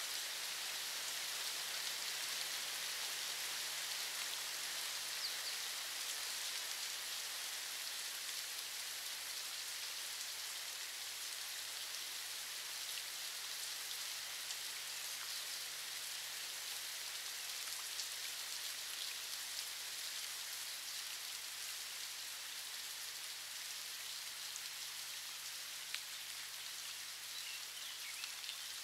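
A steady, even hiss with a rain-like patter and a few faint ticks, easing slightly toward the end.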